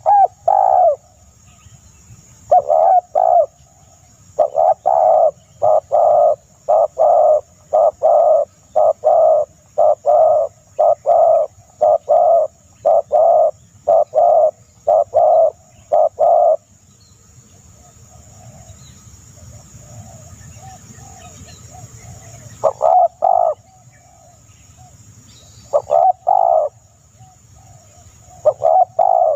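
A bird's low, dove-like cooing notes repeated in a long, even series, nearly two a second for about fourteen seconds, then a few short bursts near the end. A steady high-pitched buzz runs underneath.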